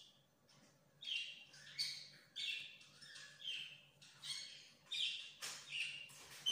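A bird chirping repeatedly: short, high, falling chirps about twice a second, starting about a second in.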